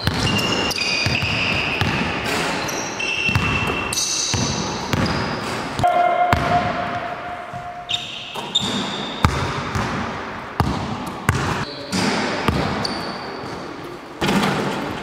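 Basketballs bouncing on a hardwood gym floor at irregular intervals, mixed with short high squeaks of basketball shoes on the court, echoing in a large hall.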